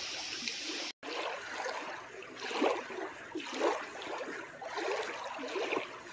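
Small waves lapping at the lake's edge: soft, irregular splashes and gurgles a second or so apart.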